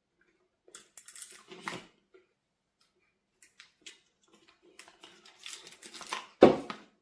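Handling noises: scattered rustles and clicks of objects being moved, with one loud thump near the end.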